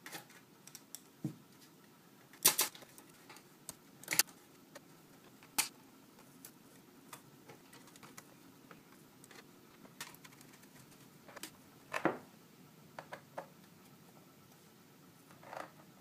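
Small screwdriver and screws clicking and tapping on the aluminium bottom case of a MacBook Pro as the base is screwed back on. The clicks come at irregular times, with a few louder knocks from handling the case.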